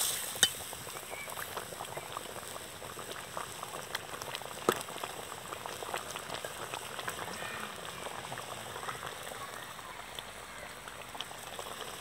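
Thick eel gravy simmering in a metal pot over a wood fire, a steady stream of small bubbling pops. Two sharper clicks stand out, about half a second in and just before five seconds.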